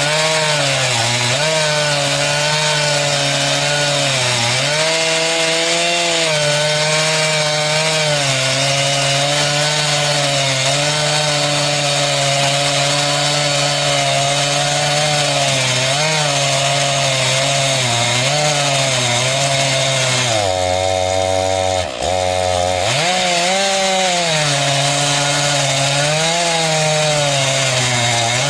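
Chainsaw on an Alaskan chainsaw mill running at full throttle, ripping a cedar log into boards, its engine note wavering slightly under load. About twenty seconds in, the engine drops to a low idle for a couple of seconds and the cutting noise thins, then it revs back up and keeps cutting.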